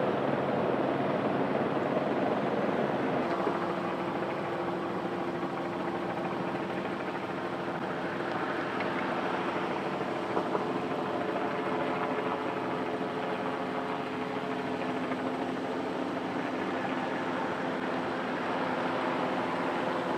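Light single-engine turbine helicopter running steadily: rotor and engine noise with a steady turbine whine. A higher steady tone comes in a few seconds in, and a lower one joins a little past the middle.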